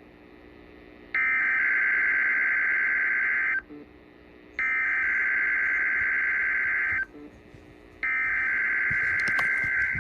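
NOAA Weather Radio SAME alert header: three bursts of warbling digital data tones, each about two and a half seconds long with about a second between them, the third running on past the end. Here it opens the station's required weekly test broadcast.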